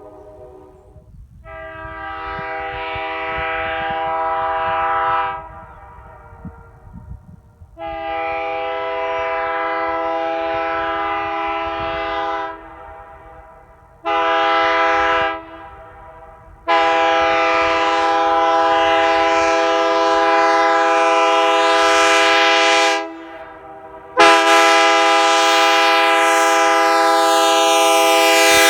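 A 1980s wide-font Nathan AirChime K3LR2 three-chime locomotive air horn sounding its chord in five blasts: the first swells in slowly, then come a long blast, a short one, and two long ones.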